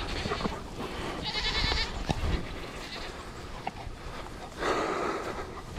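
Nigerian dwarf goats bleating: a high, wavering bleat about a second in and a lower, noisier one near the end.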